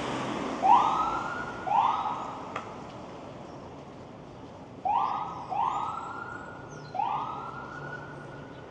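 Ambulance siren giving five short rising whoops, each sweeping up and briefly holding: two in the first couple of seconds, then three more about four seconds in.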